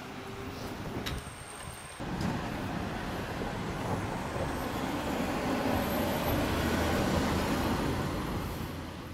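Street traffic: a minivan drives past close by, its engine and tyre noise swelling to a peak and then easing off. For the first two seconds only quieter street background with a few light clicks is heard, before the traffic noise comes in suddenly.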